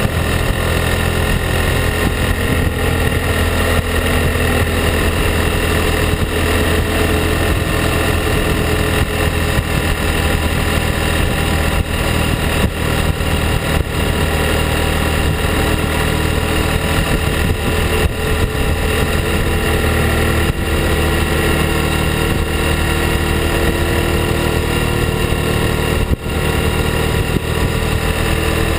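Ducati Hypermotard's L-twin engine running at a steady cruise, picked up by a camera on the rear fender close to the exhaust. The pitch drifts slightly, with one brief dip in level near the end.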